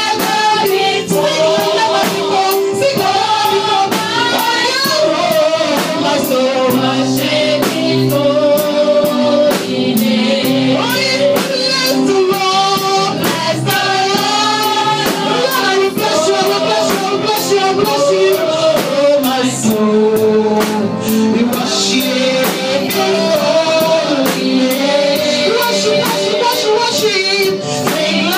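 Gospel singing with a live band: voices singing over a steady drum-kit beat and sustained instrument chords.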